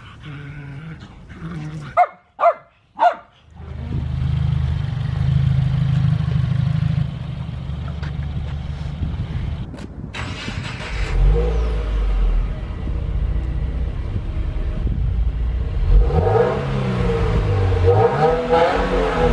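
A dog barks three times in quick succession. Then a 2016 Subaru WRX's turbocharged flat-four engine idles steadily through its axle-back exhaust and is revved several times in the second half, each rev rising and falling in pitch.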